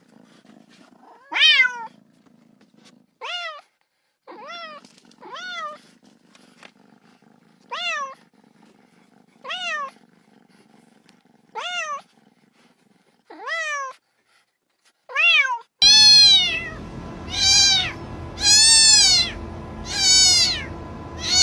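Cat meowing over and over in short, high calls that rise then fall, one every second or two, with a faint low rumble between some calls. About 16 seconds in the meows turn louder and longer, over a steady background hiss.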